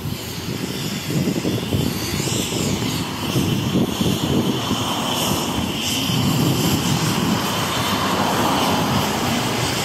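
MAZ city bus's diesel engine running at the stop, a steady low rumble that grows louder over the first few seconds.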